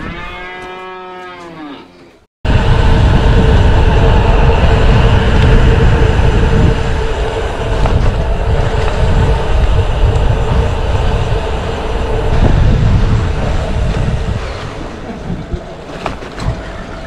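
One long moo from cattle, cut off after about two seconds. Then loud wind rumble on the microphone of a moving bicycle with a steady hum, easing off near the end.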